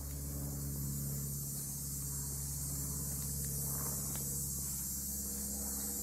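Steady high-pitched buzzing of a summer insect chorus, such as crickets, over a steady low hum.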